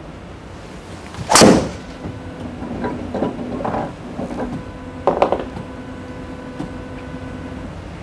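Sharp, loud crack of a golf club striking the ball on a full swing, about a second and a half in, followed by several softer knocks and scuffs.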